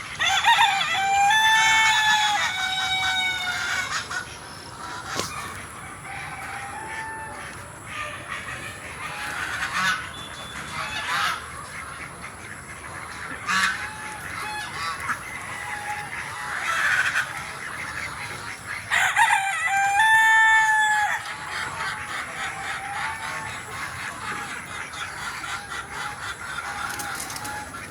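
Free-range chickens: a rooster crows twice, once at the start and again about two-thirds of the way through, each crow a long pitched call lasting a couple of seconds. Hens cluck on and off in between.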